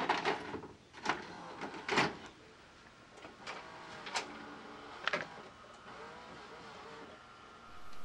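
VHS cassette pushed into a Sharp VCR: a series of about six clicks and clunks over the first five seconds as the loading mechanism draws the tape in and threads it, with a faint motor whir in between.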